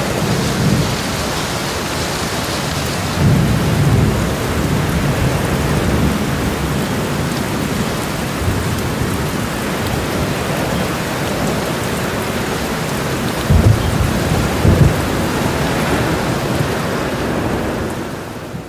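Steady heavy rain with low rolls of thunder, one a few seconds in and another about three-quarters of the way through. The rain fades out at the end.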